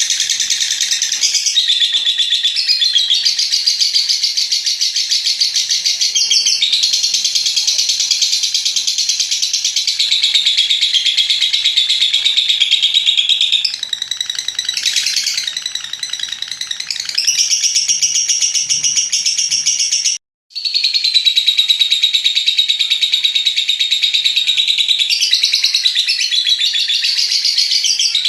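Lovebird giving a long 'ngekek' call: a shrill, rapid chattering trill held for several seconds at a time with short breaks. The sound cuts out for a moment about two-thirds of the way through.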